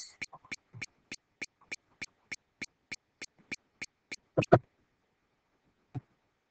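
Light clicks in an even series, about three a second, for roughly four seconds, then a louder double click and one more click near the end, typical of a computer mouse or pen being worked at a desk.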